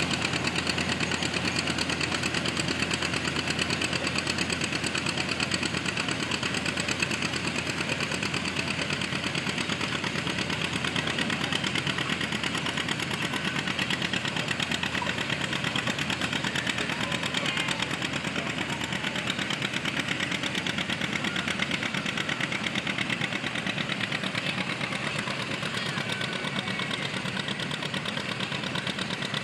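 Tractor engine running steadily under load as it pulls a weight sled, with a fast, even firing beat. It gets slightly quieter near the end.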